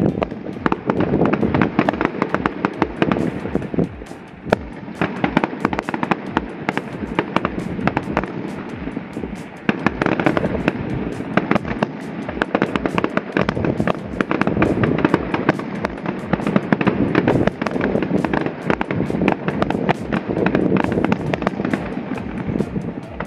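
Aerial fireworks bursting in a dense, continuous barrage of bangs and crackling.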